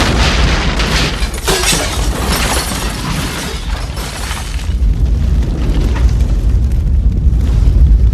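Movie soundtrack effect: a loud, continuous rumbling noise with a heavy deep bass. It eases a little in the middle and swells again near the end.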